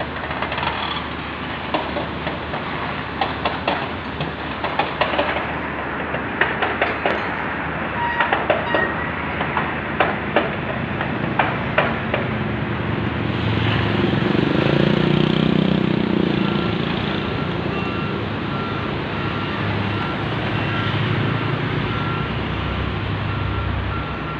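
Construction-site machinery: the first half is a run of sharp metal clanks and knocks. Then a heavy diesel engine swells up and runs, with a warning alarm beeping about one and a half times a second.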